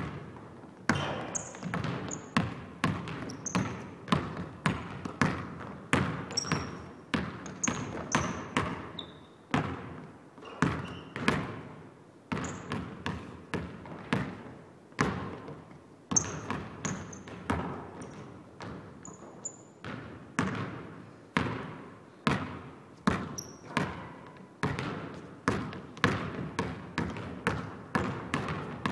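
Basketball dribbled on a hardwood gym floor, a steady bounce about twice a second that echoes in the large empty hall. Short high squeaks of shoes on the floor come in between.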